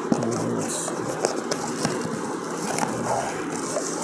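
Cardboard packaging and plastic wrapping being handled: rustling and scraping with small crinkles and taps as the box's inner tray is lifted and the plastic-wrapped item is pulled out.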